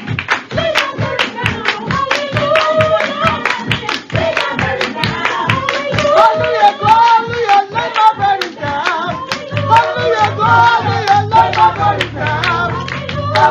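Church praise singing with electronic keyboard accompaniment and steady hand clapping on the beat. A low bass comes in about two-thirds of the way through.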